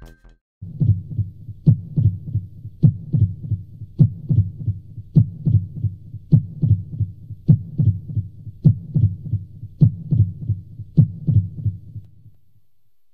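Slow heartbeat sound effect: low double thumps about once a second, fading away near the end.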